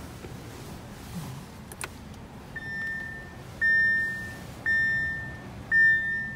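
2017 Audi Q7 dashboard warning chime sounding four times about a second apart, each chime a single high tone that strikes sharply and fades, after a single click.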